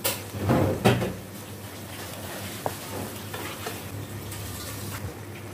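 A plastic spatula stirring and scraping through a simmering tofu and minced-beef stir-fry in a non-stick wok, with a few loud strokes in the first second or so. After that, a steady bubbling and sizzling of the sauce comes through with faint ticks.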